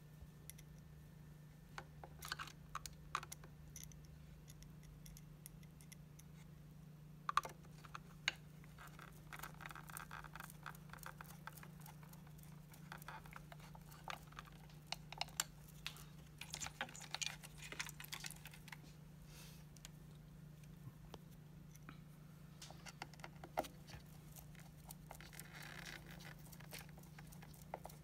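Hand screwdriver work on an opened hoverboard: scattered light clicks, taps and brief scrapes of metal and plastic as small screws are turned and parts handled, over a steady low hum.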